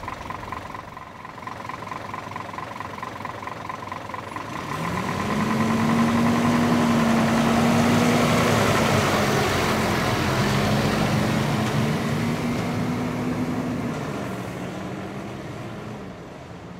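Heavy diesel vehicle's engine pulling away and driving past. Its note rises about five seconds in and then holds, the sound is loudest midway, and it fades away near the end.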